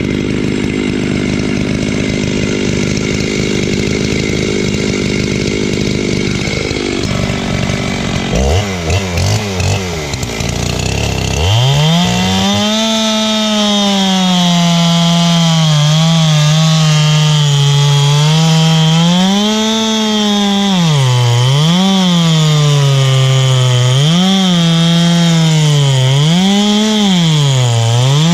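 Modified Makita/Dolmar 7900 79cc two-stroke chainsaw with a 24-inch bar, running at high revs, dropping back and being blipped near idle. After about eleven seconds it saws into the base of a dense, dead red gum eucalyptus trunk, the engine note sagging under load and picking back up again and again.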